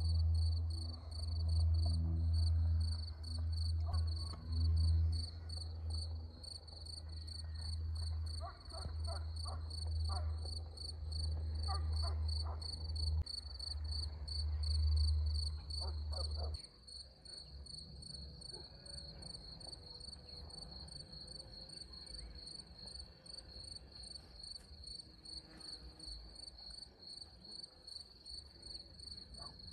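Insects chirping steadily in a fast, high, pulsing trill throughout. A loud, uneven low rumble sounds under them for roughly the first half and cuts off suddenly.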